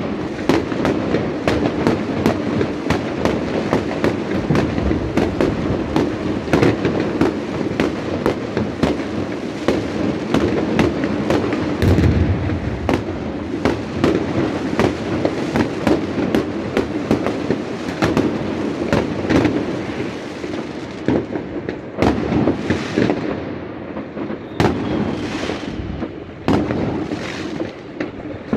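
Many fireworks going off at once across a city: a dense, continuous stream of bangs and crackles over a steady rumble. Near the end it thins to separate bangs a second or two apart, each trailing off.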